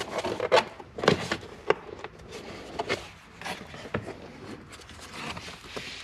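Hands handling plastic car interior trim: scattered clicks, knocks and rubbing, the sharpest ones in the first two seconds, then softer fumbling.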